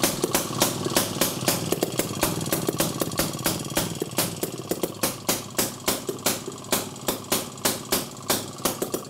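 Single-cylinder Pannonia two-stroke engine on the bench, running on its own on a newly fitted electronic ignition after being spun up with a drill. It fires with sharp regular pops that slow from about four or five a second to about three a second as it settles.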